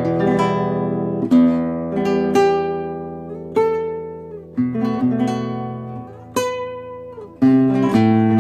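Classical guitar played fingerstyle: a slow melody over bass notes, with a new note or chord plucked about once a second and each one ringing out and fading before the next.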